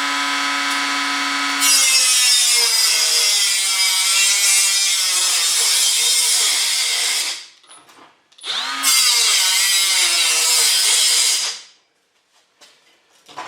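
An electric power cutting tool cutting steel bar stock in two passes. The motor whines up to speed and bites into the metal about two seconds in, cutting for about five seconds before stopping. It then spins up again and cuts for about three more seconds before winding down.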